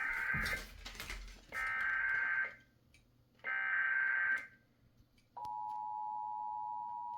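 Emergency Alert System test signal over the radio: three short bursts of SAME digital header data tones about a second apart, then the steady two-tone attention signal comes in about five seconds in.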